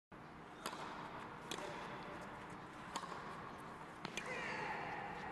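Tennis ball struck by rackets in a serve and short rally: five sharp hits about a second apart, the last two close together. A short call follows near the end.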